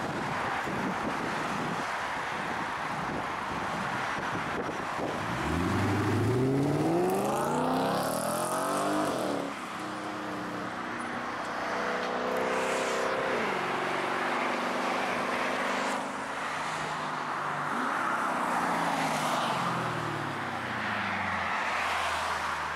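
Nitrous-equipped Lexus IS F's 5.0-litre V8 accelerating hard: its pitch rises sharply through the revs about five seconds in, climbs again after a shift, then falls away as the car slows. Near the end a low, steady engine tone sets in.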